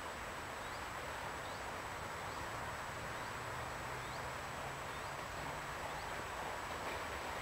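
Steady outdoor background noise with a faint low hum, over which a small bird repeats a short, high rising call about once a second.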